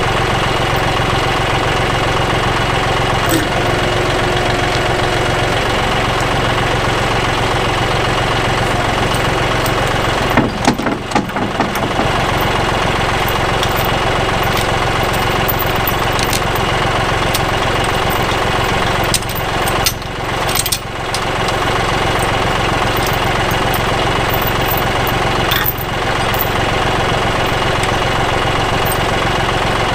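John Deere 5055E tractor's three-cylinder diesel engine running steadily while working dirt with a land plane. The sound briefly drops and wavers a few times, about a third of the way in and again around two thirds of the way through.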